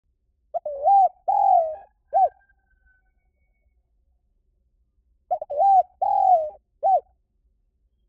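Spotted dove cooing: two identical three-note phrases about five seconds apart, each a coo, a longer coo that slides down, and a short final note.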